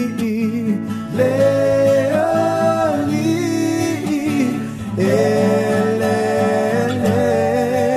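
A song: a solo voice sings long, wavering notes over steady backing chords, pausing briefly about a second in and again near five seconds.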